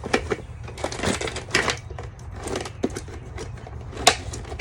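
Metal snow chains clinking and rattling as they are handled and packed into their storage case: irregular scattered clinks, with a sharper knock about four seconds in.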